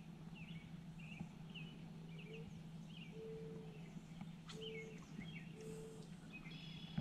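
Birds chirping in short high calls, with a few low, held cooing notes from another bird. A steady low hum runs underneath, and there is one faint click about four and a half seconds in.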